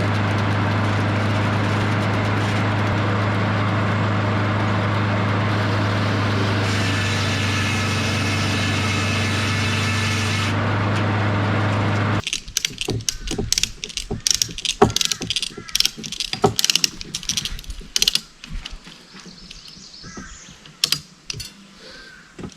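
An engine running steadily, then shut off abruptly about twelve seconds in, followed by scattered irregular clicks and knocks.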